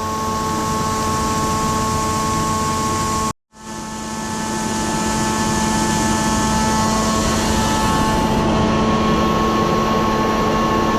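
Farm machinery running steadily, a loud even noise with a low hum and a high whine. The sound drops out for a moment about three seconds in, then fades back up.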